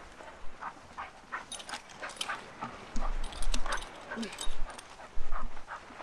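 Dogs calling in short sounds while running on leashes, over a quick patter of footsteps on sand. Low rumbles on the microphone come several times in the second half and are the loudest thing heard.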